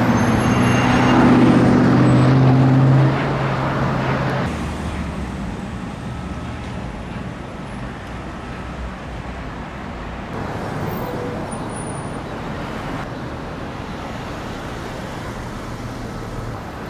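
Street traffic: a motor vehicle's engine passes close and loud for the first three seconds, then fades into a steady wash of road traffic.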